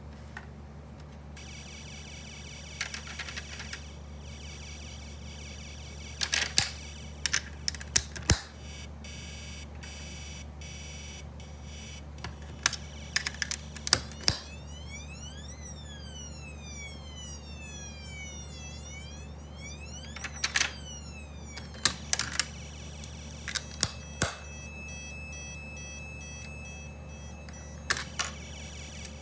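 Snap Circuits alarm IC sounding through the kit's small speaker: high electronic tones, rising and falling siren-like sweeps in the middle and a warbling tone near the end, changing as the light reaching the circuit changes. Sharp clicks and knocks of hands on the plastic board and snap pieces come repeatedly and are the loudest sounds, over a steady low hum.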